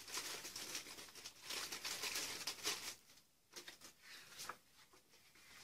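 Faint crinkling and rustling of plastic packaging being handled and opened by hand, irregular for about three seconds, then only a few small rustles.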